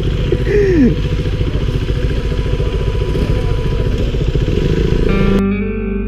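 KTM RC 390's single-cylinder motorcycle engine running steadily under way, its rapid firing pulses loud throughout, with a brief falling tone about half a second in. About five seconds in it cuts off abruptly and background music takes over.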